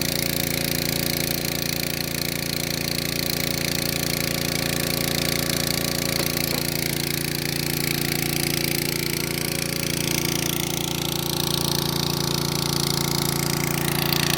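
Mini rotary borewell drilling rig running steadily, its engine giving a constant, even hum that does not rise or fall.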